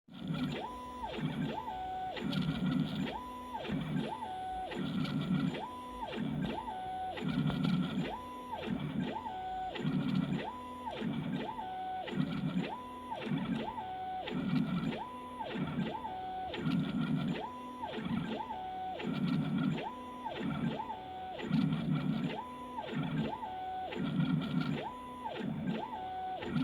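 CNC machine's stepper motors whining through repeated back-and-forth moves, the pitch ramping up, holding and ramping down about once a second, with a lower-pitched rumble on each pass.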